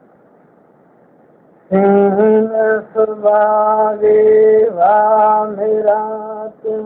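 A man singing a Gojri bait, a traditional folk verse, solo in long held notes with slides between them. The singing begins about two seconds in, after a faint hiss.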